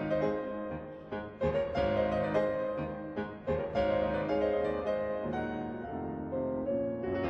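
Background piano music, with notes and chords struck one after another and left to ring.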